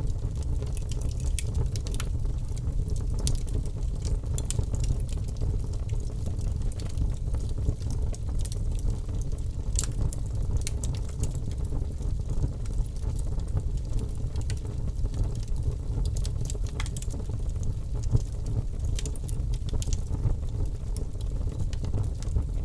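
Wood fire burning in a fireplace, with a steady low rumble of the flames and irregular sharp crackles and pops.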